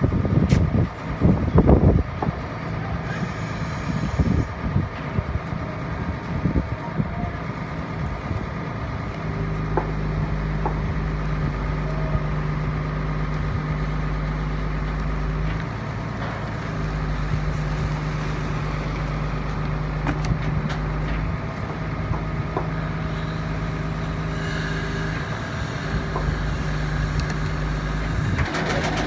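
Boom truck's diesel engine running with a steady drone that rises and drops back several times as the truck-mounted crane hoists a tile pallet in its slings. A few sharp clanks come in the first couple of seconds.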